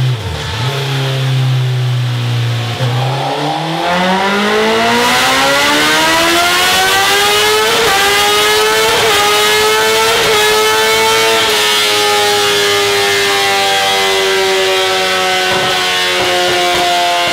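Honda CBR1000RR inline-four engine with its stock exhaust, revving up under load on a rolling-road dyno. The pitch climbs smoothly from about three seconds in, peaks around ten seconds, then eases slowly down.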